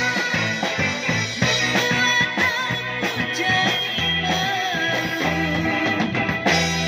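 Live band playing a song on electronic keyboard, drum kit and electric bass guitar, with a woman singing into a microphone. Long low notes are held from about four seconds in.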